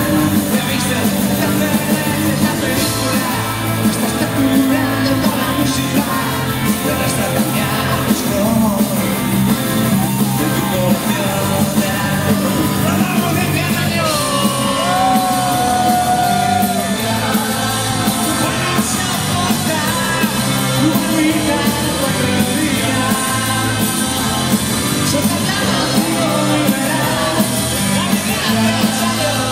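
A rock band playing live at full volume through a PA, with electric guitars, bass, drums and a male lead vocal, and shouts from the audience around the recorder.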